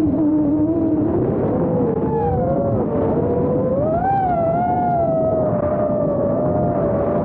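FPV quadcopter's brushless motors and propellers whining, the pitch dropping sharply at the start as the throttle is cut, then wavering up and down with throttle and rising briefly about four seconds in.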